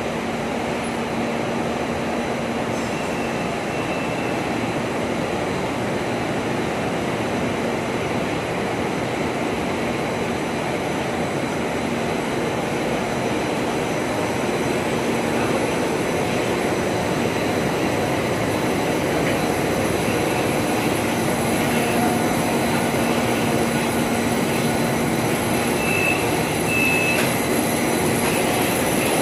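Roll-to-roll film coating machine running, its film web travelling over the rollers: a steady mechanical noise with a faint low hum and a thin high whine.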